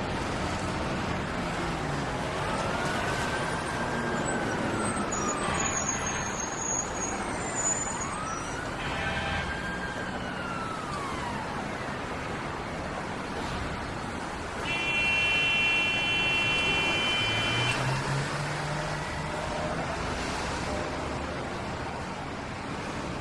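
City street traffic ambience: a steady wash of traffic noise with a distant siren wailing up and down twice in the first half. A vehicle horn sounds one steady blast for about three seconds, about two-thirds of the way through, the loudest moment.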